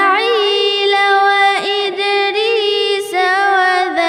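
A solo voice recites the Quran in melodic tajweed style, holding a long, high, ornamented note with slides and turns. It breaks briefly about a second and a half in and again near three seconds.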